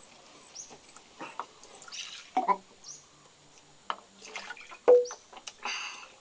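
Liquid poured from a bamboo tube into a coconut-shell cup, in small drips and splashes, with sipping. A sharper knock about five seconds in, as a cup is set down on the clay table.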